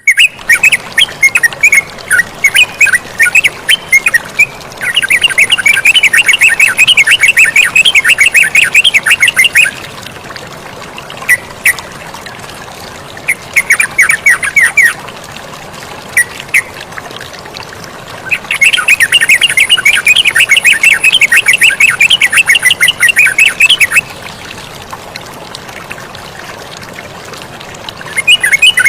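Yellow-vented bulbul (terucukan) singing in rapid chattering phrases. Two long bursts of about five seconds each are separated by shorter phrases and single notes, over a steady rush of flowing water.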